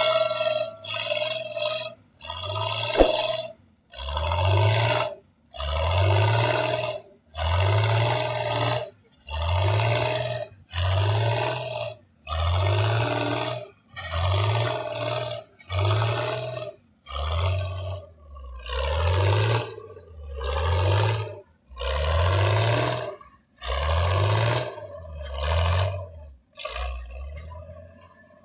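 Vintage pulling tractor's engine revved in repeated bursts about every second and a half, each rising in pitch and cut off sharply, as the tractor rears up in wheelies trying to break the sled free on pavement.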